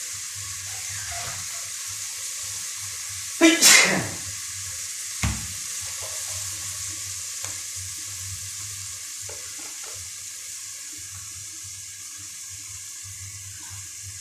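Onion, garlic and spice powders frying in oil in a pot with a steady sizzle. A loud clatter comes about three and a half seconds in, and a lighter knock just after five seconds.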